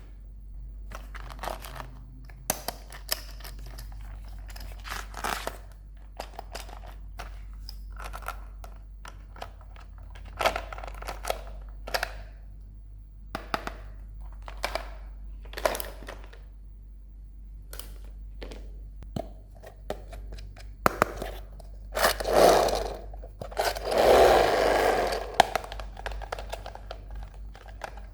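Plastic toy packaging being handled and unwrapped: scattered crisp crackles and clicks, with two longer, louder crinkling rustles near the end.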